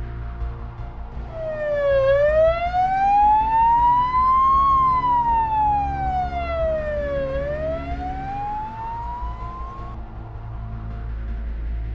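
Ambulance siren wailing, its pitch sweeping slowly down, up, down and up again, each sweep lasting a few seconds. It comes in about a second in and cuts off near the end.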